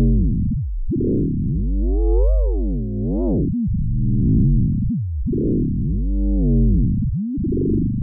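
Vector FM synthesizer playing a deep sine-on-sine FM tone. Over a steady low bass, its overtones rise and fall in repeated arches about once a second, with brief dips between some of them.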